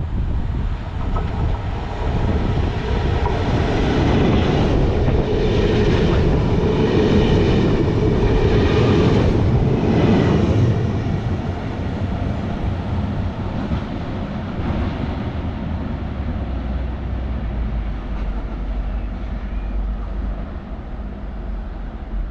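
A train running along the tracks past the camera, loudest from about four to eleven seconds in, then fading to a steadier, lower rumble.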